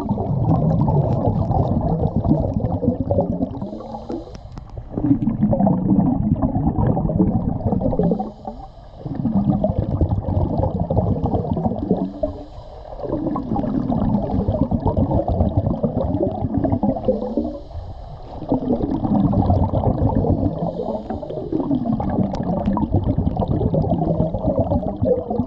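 Scuba diver breathing through a regulator, heard underwater: long gurgling rushes of exhaled bubbles with short lulls between breaths, about one breath every four to five seconds.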